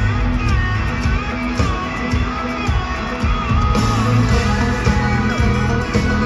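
Live country-rock band playing loud in an arena, with acoustic and electric guitars over a heavy bass and drum backing.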